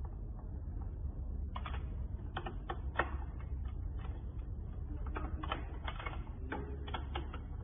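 Irregular metallic clicks of a wrench working on a bicycle's crank bolt at the bottom bracket, about a dozen over the stretch and clustered more closely near the end.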